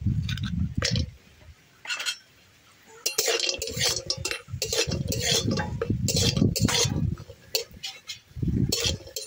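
Metal spatula scraping and clinking against a metal kadai, stirring lentil dumplings (bori) frying in oil, with repeated scrapes from about three seconds in. A low rumble comes in the first second.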